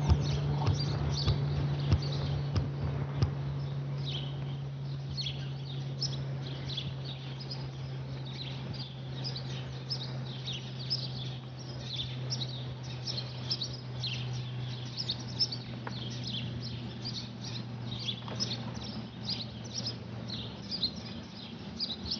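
Airbus A400M's four turboprops droning overhead: a steady low propeller hum that slowly drops in pitch as the aircraft passes, with small birds chirping throughout.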